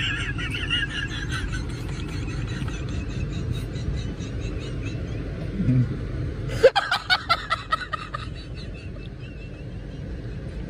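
A young man's high-pitched, wheezing laughter in quick squeaky pulses, with a second, louder outburst of rapid laughs about seven seconds in. A low rumble inside the car runs underneath and drops off just as the second outburst starts.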